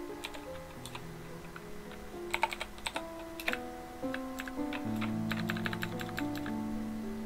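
Computer keyboard typing in short bursts of quick clicks, over background music of held notes changing in steps.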